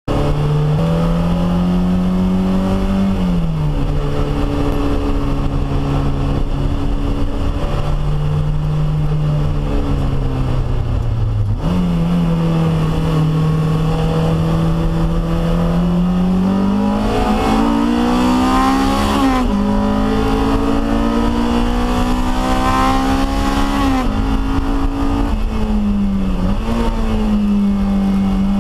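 Toyota MR2 Spyder's swapped-in Honda K20 four-cylinder engine at racing pace, heard from inside the cabin. Its note climbs and falls with throttle and gear changes, with several sudden jumps in pitch at the shifts.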